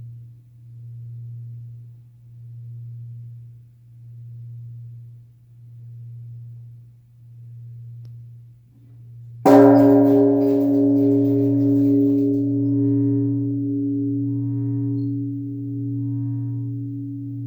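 Large Japanese temple bell (bonshō) ringing: the low hum left from the previous stroke pulses slowly, about once every second and a half, then a new stroke about halfway through rings out loudly and hangs on with a wavering hum.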